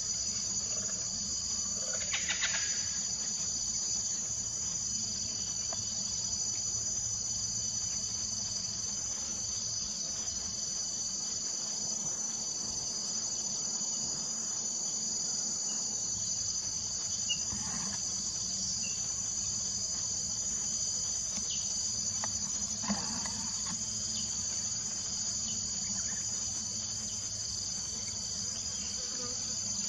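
Steady, high-pitched chorus of insects, with a few brief louder rustling noises mixed in.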